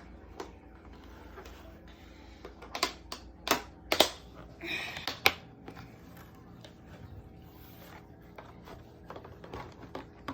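Hard plastic toy parts clicking and knocking as Beyblade pieces are handled and fitted together, with a brief rustle about halfway through.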